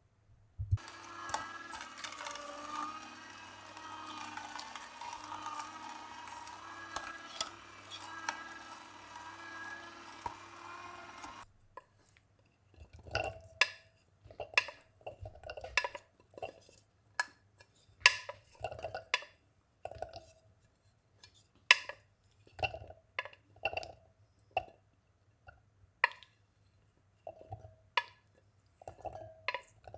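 Hard objects clattering: a continuous jumble of small clinks for about the first eleven seconds, then a slower, irregular run of separate sharp clinks and knocks, like dishware or utensils being handled.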